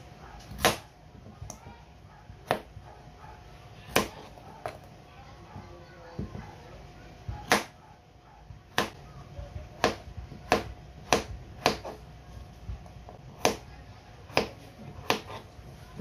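Kitchen knife chopping peeled potatoes into cubes on a plastic cutting board: about fifteen sharp knocks at an uneven pace, coming faster in the second half.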